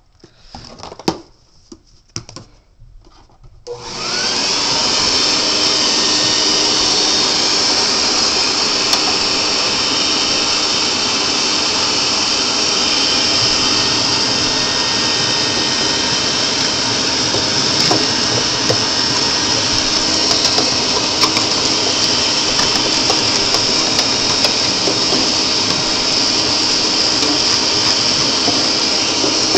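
Vacuum cleaner switched on about four seconds in, its motor spinning up and then running steadily as it sucks soot and ash out of the pellet stove, with a few sharp clicks over it. Light clicks and knocks come before it starts.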